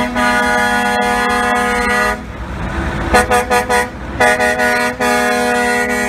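Vehicle horn honking over running machinery: long sustained blasts, with a break about two seconds in and then a quick run of about four short toots before it sounds steadily again.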